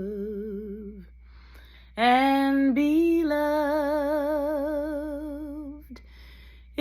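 A woman singing alone with no accompaniment. A held note with wide vibrato fades out about a second in; after a short pause she sings one long note that slides up and settles, with vibrato, and ends about six seconds in.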